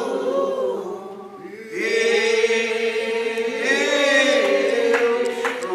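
Slow church singing by several voices in long drawn-out notes; it drops quieter about a second in, then swells back.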